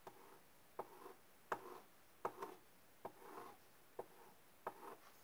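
Pencil tip tapping down and scratching across paper in short shading strokes, a sharp tick and brief scratch about every three-quarters of a second.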